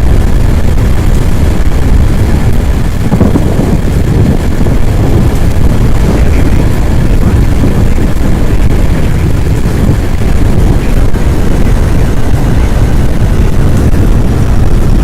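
Loud, steady roar of strong wind buffeting the microphone, the wind of a nearby tornado.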